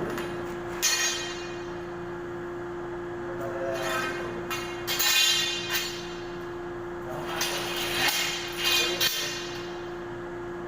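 Metal clinks and scrapes from hands working on conduit piping and its fittings, in several short bursts over a steady electrical hum.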